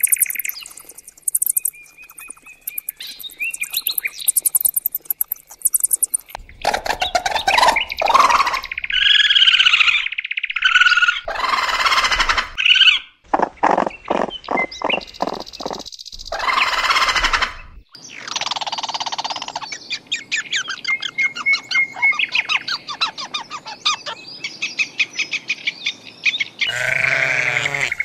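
A changing run of animal calls: high bird chirps and tweets at first, then assorted squeals, calls and fast trills, and near the end a deep bleat from an Alpine ibex.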